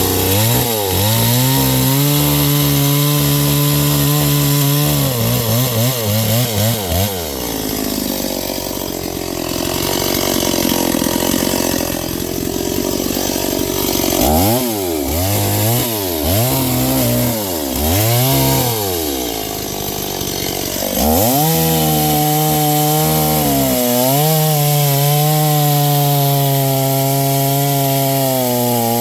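Noker 381 72cc two-stroke chainsaw held at high revs in a cut through semi-rotted oak branches, then dropping to idle. It is blipped up and down four times, then held at full revs again in another cut, with one brief dip in the middle.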